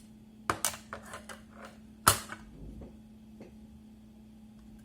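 Small hard clicks and taps of laptop drive parts being handled and fitted, the loudest about two seconds in, with a few fainter ticks after it, over a faint steady hum.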